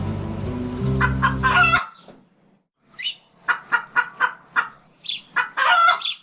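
The band's closing music chord stops about two seconds in. Then a chicken clucks in a quick run of short calls, ending in one longer call.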